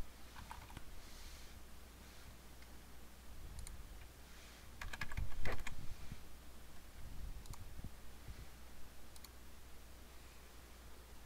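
Computer keyboard keystrokes: a few scattered taps, with a quicker run of keys about five seconds in, over a faint low hum.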